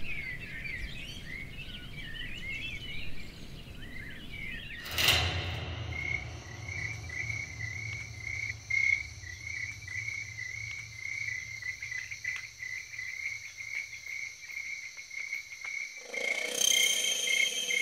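Birds chirping, then from about five seconds in a night ambience of crickets chirping in a steady pulsing rhythm over a faint low hum; more steady, higher tones join near the end.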